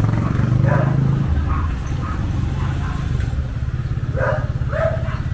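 Small motorcycle engine running at low speed close by, a steady low rumble. A dog barks twice near the end.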